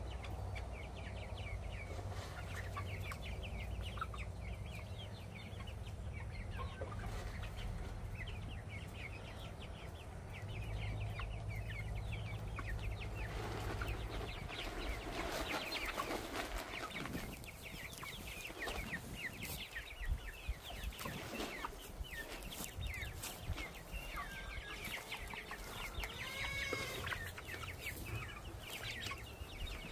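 A flock of young pullets clucking and peeping as they are hand-fed, many short calls overlapping, with one longer call that rises and falls in pitch near the end.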